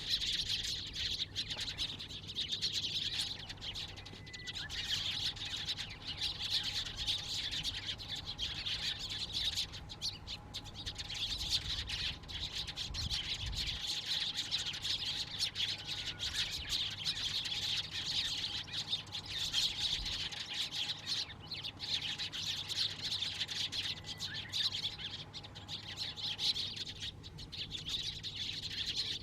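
A flock of Eurasian tree sparrows chirping, many birds calling at once in a dense, unbroken chatter.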